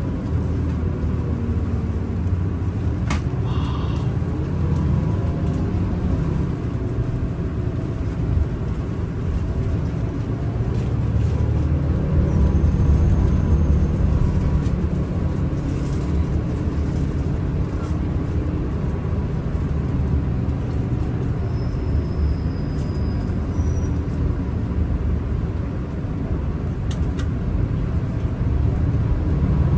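Coach engine and road noise heard from inside the cabin: a steady low rumble that swells somewhat about twelve seconds in.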